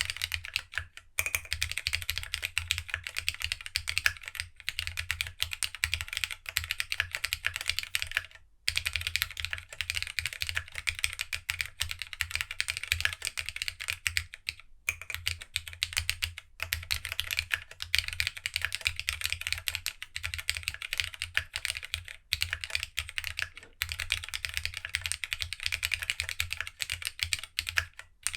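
Continuous fast typing on a GEONWORKS W1-AT mechanical keyboard, built plateless with no foam and fitted with glossy TOHSI GSA Retro Highlight keycaps. Rapid overlapping keystroke clacks run on, with brief pauses every few seconds.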